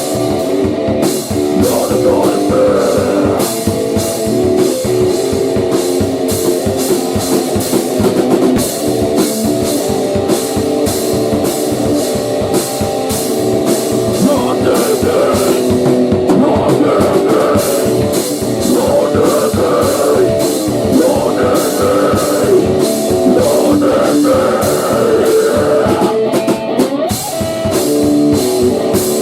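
A rock band playing a loud instrumental passage: distorted electric guitar chords over a fast, steady drum-kit beat.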